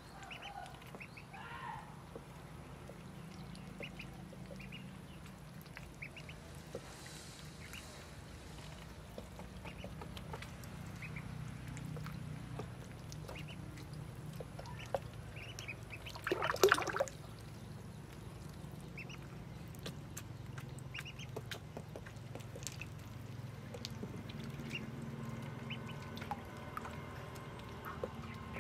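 Ducklings calling with scattered short, high peeps while they swim in a water basin. A brief loud burst of sound comes a little past halfway through.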